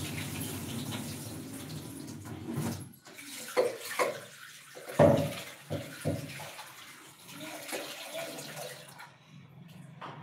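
Water running steadily for about three seconds, then breaking off into a few sudden clattering knocks, the loudest about five seconds in, with a fainter running sound after.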